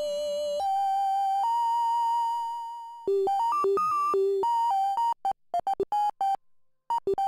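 Waldorf Blofeld wavetable synthesizer patch playing a single-note melody. Three held notes step upward, a quicker run of notes follows about three seconds in, and from about five seconds the notes turn into short staccato blips with silences between them.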